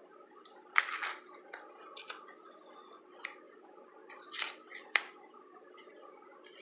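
A small yellow paper packet being torn open by hand: several short rips and crackles. The loudest rip comes about a second in, then two more sharp ones between four and five seconds in.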